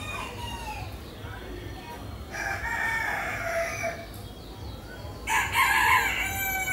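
Roosters crowing: one crow about two seconds in, and a second, louder crow near the end.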